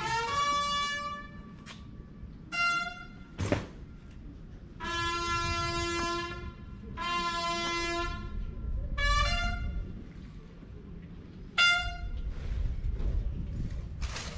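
A military brass horn call of separate notes, mostly short, with two long held notes starting about five and seven seconds in. A single sharp thump comes about three and a half seconds in.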